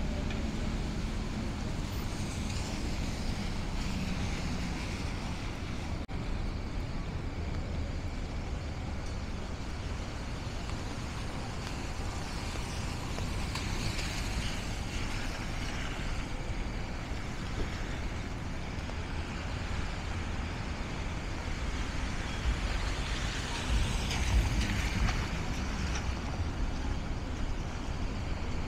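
City street traffic on wet roads: a steady hiss and rumble of passing cars and trucks, with a louder low rumble from a passing vehicle near the end.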